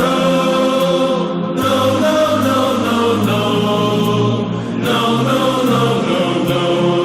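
Background music with sustained, choir-like voices holding chords that change every second or so.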